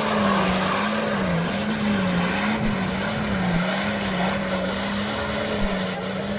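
Off-road 4x4's engine held at high revs, its pitch swinging up and down in an even wobble about once a second over a steady rush of noise.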